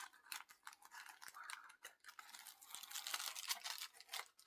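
Close handling noise from hands fiddling with an object: a rapid, irregular run of scratchy rustles and light clicks.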